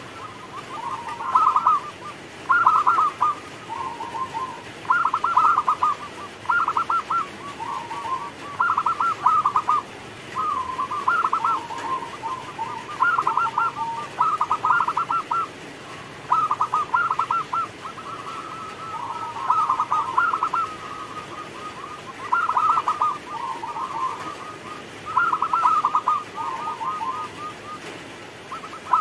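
Zebra dove (perkutut) singing its rhythmic coo song: repeated phrases of quick, rolling staccato notes, one phrase every second or two.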